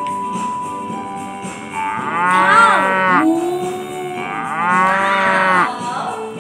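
Cow mooing twice, each moo about a second and a half long, over steady keyboard music.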